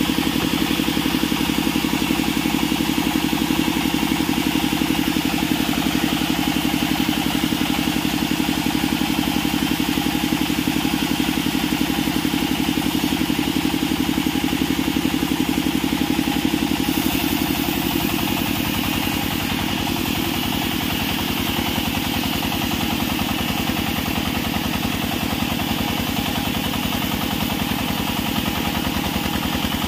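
Small single-cylinder stationary diesel engine running steadily under load, driving a vertical band saw that is cutting a wooden beam. The engine's level drops slightly about two-thirds of the way through.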